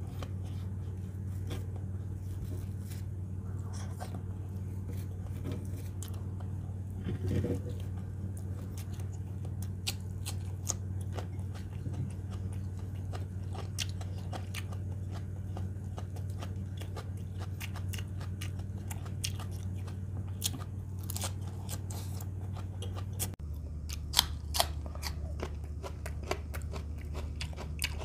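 Close-up chewing and mouth sounds of a person eating leafy salad and rice by hand: many small wet clicks and crunches. Under them runs a steady low hum that shifts lower late on.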